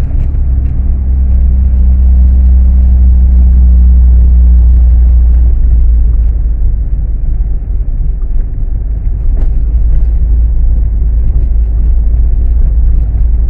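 Car moving along a road: a steady low engine and road drone. The engine note drops about five and a half seconds in, and a rougher drone carries on.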